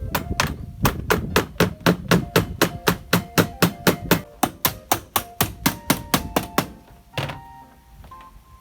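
Rapid, regular hammer blows, about four a second, stopping about two-thirds of the way through with one last blow shortly after. Background music with sustained notes plays underneath.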